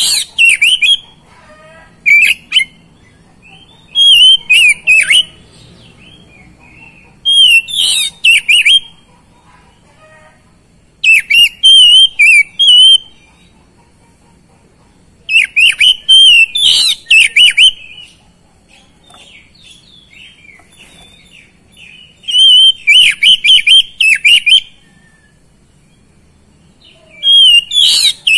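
Oriental magpie-robin (kacer) singing loudly in repeated bursts of rapid, varied, gliding song phrases, each a second or two long, with short pauses between them.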